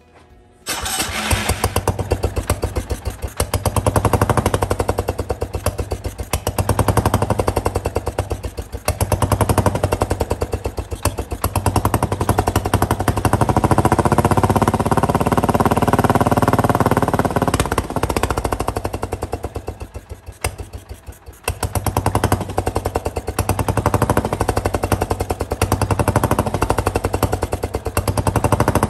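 Power King garden tractor's small engine running on a test after head and valve work, with rapid exhaust pulses. It surges up and down every few seconds. About twenty seconds in it sags almost to a stall, then picks back up.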